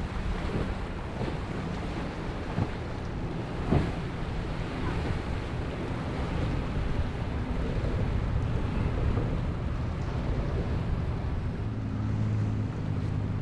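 Boats under power running through choppy surf, with rushing water and wind buffeting the microphone, and a few sharp thumps in the first four seconds. Near the end a steady low outboard motor hum comes up.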